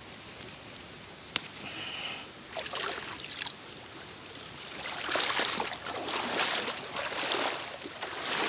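Water sloshing and splashing in irregular surges, as from someone moving through shallow water, starting about two and a half seconds in and loudest in the second half; a single sharp click about a second in.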